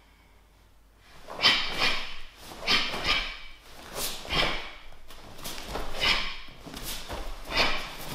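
Karate gi snapping with fast strikes and blocks during a kata, together with sharp forceful exhales through the nose. The sharp bursts start about a second in and come mostly in quick pairs.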